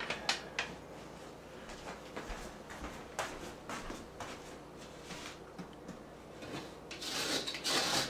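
Scattered light knocks and clatters, then from about seven seconds in a hard spatula scraping dough out of a metal mixing bowl.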